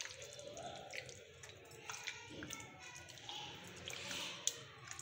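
Soft wet squelching and sticky clicks of a hand working fish pieces through a thick gram-flour batter in a glass bowl.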